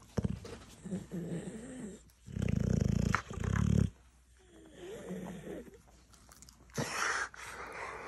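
Dogue de Bordeaux grumbling and growling in wavering tones while being tickled, with two loud low rumbles in the middle and a wheezy snort near the end.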